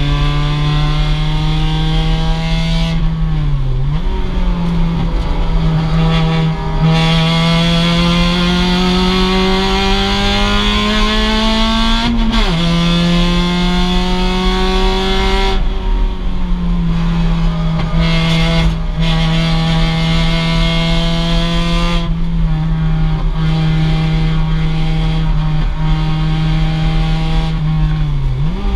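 A 2006 Mazda MX-5 race car's stock 2.0-litre four-cylinder engine running hard at racing speed. Revs climb steadily and drop sharply twice, about twelve and fifteen seconds in. Near the start and near the end they dip briefly, then jump back up.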